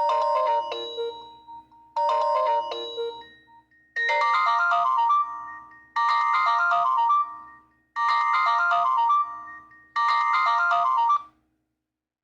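Nokia 8210 4G phone speaker playing a default ringtone: a short chime-like melodic phrase repeating every two seconds. About four seconds in it changes to a different phrase, which repeats four times and stops near the end.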